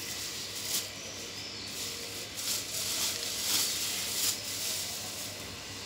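Plastic bags rustling and crinkling in irregular bursts as they are handled.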